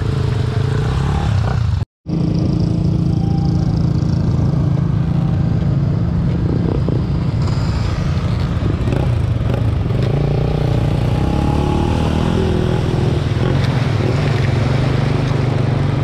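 Small motorcycle engine running steadily under way, heard from the riding bike, with a dense low rumble. The sound drops out for an instant about two seconds in.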